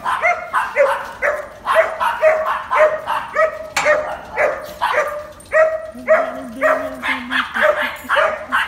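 A dog barking over and over, about two barks a second, with a lower drawn-out tone for a moment about six seconds in.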